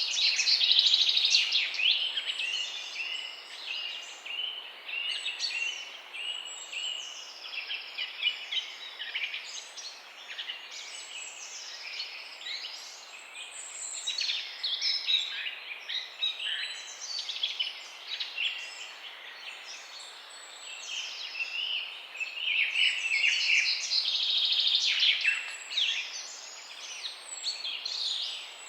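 Morning chorus of several songbirds chirping and trilling together, overlapping, over a faint steady hiss; busiest and loudest in the first couple of seconds and again later on.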